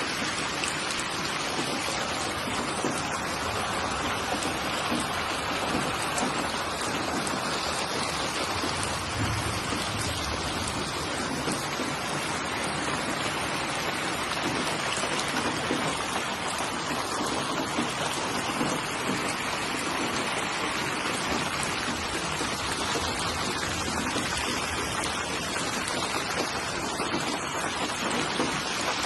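Steady rainfall: a continuous, even hiss of rain falling on surfaces, with no let-up or change.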